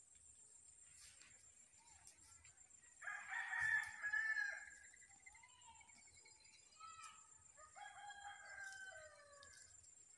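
A rooster crows once, loud and drawn out for about two seconds, about three seconds in. A fainter crow follows in the second half and trails off on a falling note.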